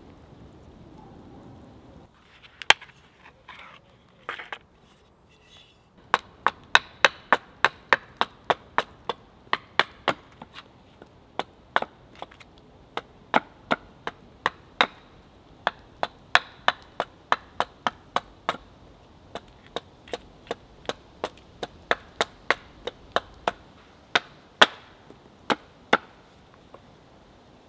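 Hatchet chopping into a wooden billet held upright on a log chopping block, roughing out a carving blank. A few scattered knocks, then from about six seconds in a steady run of quick sharp strokes, about two to three a second.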